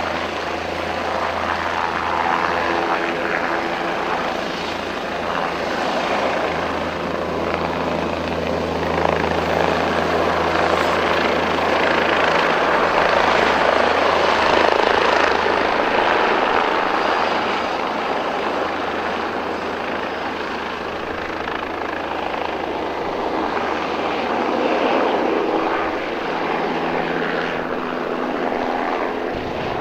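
Bell 407 helicopter, its turboshaft engine and rotor at power during takeoff and departure: a steady low rotor beat under a broad rushing blade noise that swells about halfway through and eases off near the end.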